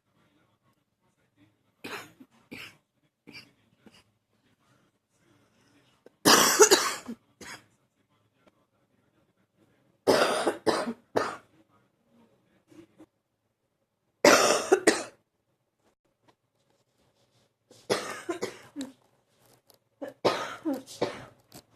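A person coughing in repeated fits a few seconds apart, first a few light single coughs, then louder bursts of several coughs each, the loudest about six seconds in. The coughing comes from an allergy flare-up.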